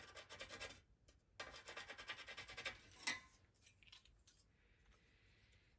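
Faint rapid scratching in two short runs, then a single click about three seconds in: marking out a steel plate by hand.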